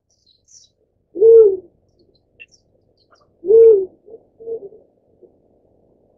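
Black-chinned fruit-dove giving low, hollow hooting coos. Two loud single notes come about two seconds apart, each rising slightly then falling, and the second is followed by a couple of softer, shorter notes.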